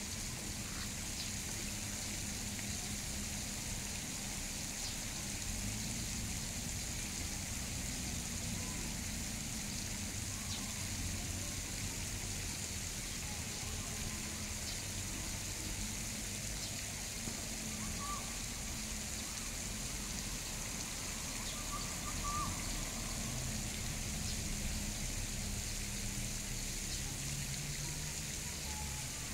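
Water trickling steadily, with a steady high hiss and a low rumble underneath. Two faint short calls come a little after the middle.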